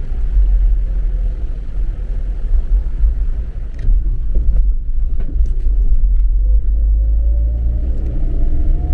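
Car heard from inside the cabin while driving slowly: a steady low rumble of engine and tyres, with the engine note rising as the car speeds up over the last two seconds or so. A few light clicks about four to five seconds in.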